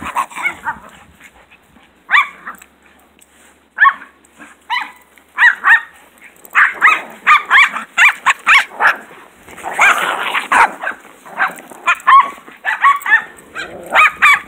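Small dogs barking and yipping while they play-fight: a few sharp, high barks at first, then quick runs of barks through the second half.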